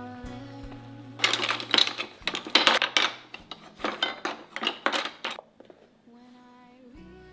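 Wooden spoons and spatulas clattering against one another and a wooden tabletop as they are set down and spread out: a quick, irregular run of sharp knocks lasting about four seconds.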